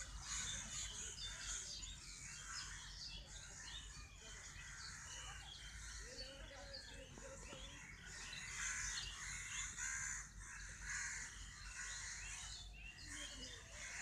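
Many birds chirping and calling at once in a dense, continuous morning chorus, with crow-like calls among them.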